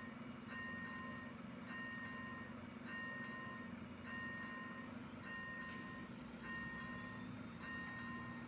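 Railway level-crossing warning signal ringing: an electronic bell tone repeating about once a second while the crossing lights flash for an approaching train. A low steady hum runs underneath.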